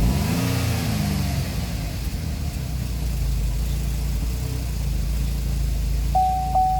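GM 3.6-litre V6 engine just after starting, its revs flaring up and dropping back in the first second or so, then running steadily but running real funny. Near the end a steady high tone comes in with a few clicks.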